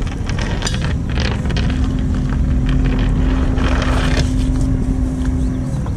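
Boat motor running with a heavy low rumble. A steady hum sets in about a second and a half in and drops out near the end, with scattered rattles and clicks over it.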